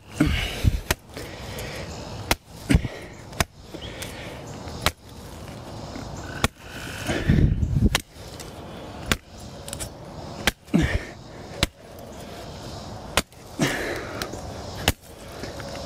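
Machete chopping at the end of a wooden stick to sharpen it into a spike: a series of sharp chops at uneven intervals, about one a second.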